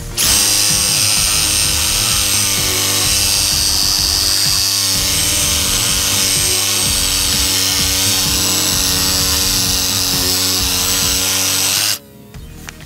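Cordless reciprocating saw running steadily at full speed, its blade cutting through a fallen tree limb, with a high whine over the motor. It starts just after the beginning and stops abruptly about twelve seconds in as the slice is cut free.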